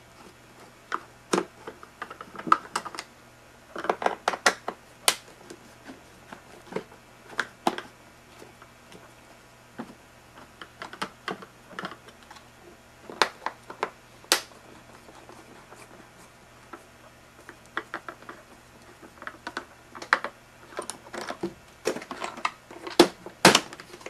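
Screwdriver clicking and scraping on screws in the hard plastic motor housing of a tub vacuum, with plastic parts knocking and rattling as they are handled. The clicks are irregular and come in clusters, and they are densest near the end.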